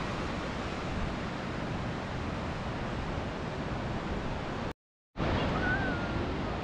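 Steady rushing of wind on the microphone and ocean surf, with a moment of dead silence about five seconds in where the audio cuts.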